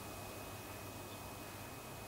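Faint steady room tone: an even low hiss with a thin, steady high whine.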